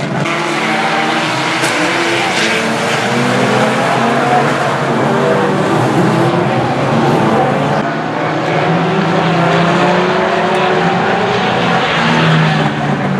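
Several banger-racing cars' engines running and revving at once, their pitches rising and falling against each other, over tyre noise on the track.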